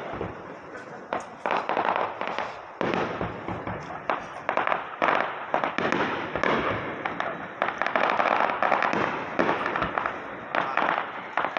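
Aerial fireworks going off in quick succession: many sharp bangs with crackling between them, densest in the second half.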